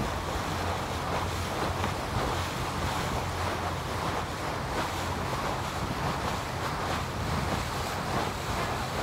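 Wind buffeting the microphone over a tour boat's steady low engine hum and water rushing past the hull as the boat moves along.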